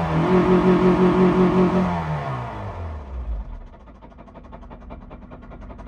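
Honda K20 2.0-litre four-cylinder engine of a 2002 Civic Type R held at high revs with a regular pulsing about five times a second, then the revs fall away over a second or so and it settles to a low idle. It sounds terrible: the engine is being run to death with its red oil-pressure warning light on.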